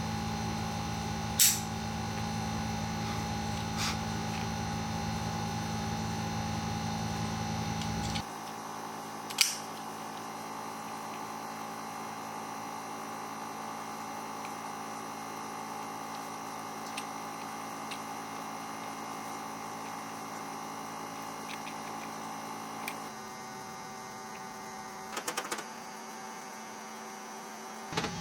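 Steady electrical hum with a low buzz that cuts off suddenly about eight seconds in, leaving a quieter hum; a few sharp clicks.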